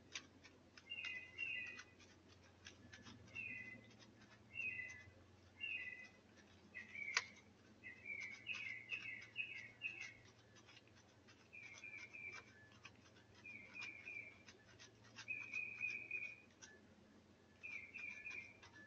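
Short high chirping calls, repeated in runs of two or three notes about once a second, with one longer held call near the end. Faint scattered scratching clicks, the sharpest about seven seconds in, from a cat scraping at dirt and leaf litter.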